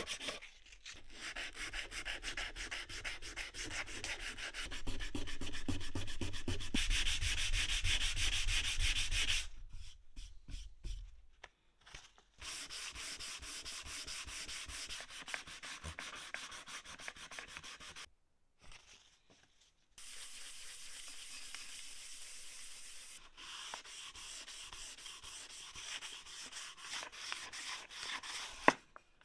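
Hand sanding block with sandpaper rubbing back and forth over the bare wood of a stripped wooden base. The sound comes in several runs of quick, even strokes with short pauses between them, and is loudest about five to nine seconds in. One sharp knock comes near the end.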